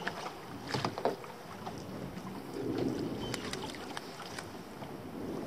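A hooked crappie splashing at the water's surface beside a small boat as it is brought up and scooped into a landing net: a few short, sharp splashes early on, then a brief wash of water.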